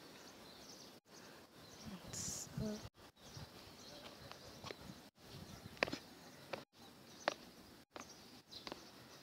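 Faint outdoor background with a few sharp, isolated taps of footsteps on stone paving in the second half, and a brief muffled sound about two seconds in.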